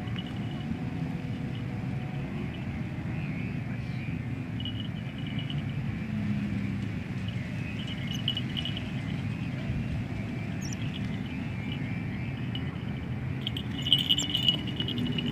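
Steady low drone of a koang kite's hummer, the bowed ribbon noisemaker on a flying kite, with short bursts of high chirping on top at intervals and a few sharp clicks near the end.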